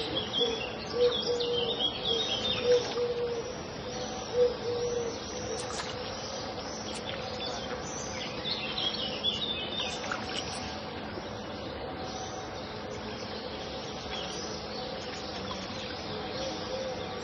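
Pond ambience: several birds chirping and calling over a steady background hiss, with a low call repeating about once a second through the first few seconds.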